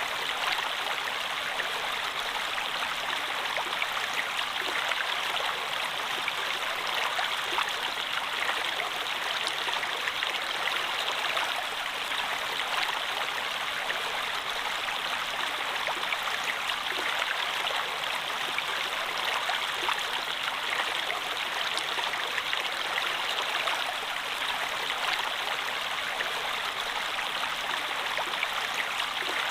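Water flowing steadily over rocks in a stream, an even rushing with a light splashing and trickling texture.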